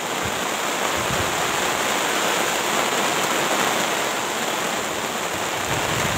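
Steady rain falling, an even hiss throughout, with a few dull low thuds underneath from a hoe digging into wet soil.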